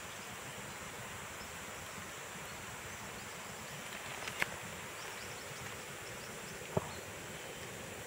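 Steady outdoor background hiss with faint steady high tones, broken by two short sharp clicks about four and a half and seven seconds in.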